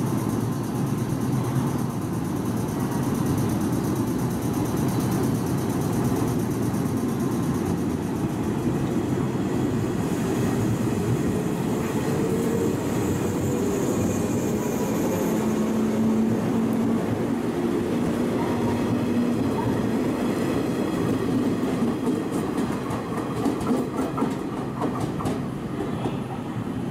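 JR 115 series electric train departing: a steady running rumble with a faint rising motor whine as it picks up speed. Near the end the wheels click over rail joints as it moves away.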